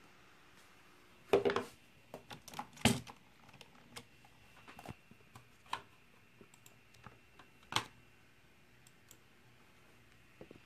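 Irregular clicks and taps from working a gaming laptop's touchpad and keys, with a few louder knocks about a second and a half, three seconds and eight seconds in, over a faint steady hiss.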